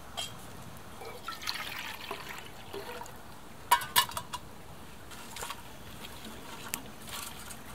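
A metal canteen cup set down on a perforated stainless-steel hobo stove, with a few sharp metal-on-metal clanks about four seconds in. Lighter clicks and crackles of twigs being handled and burning come before and after.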